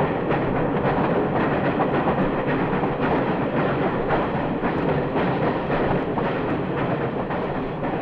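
Steam locomotive working steadily, its exhaust beats blurred into a dense, continuous rush of steam and running-gear noise. The sound is dull, with little treble.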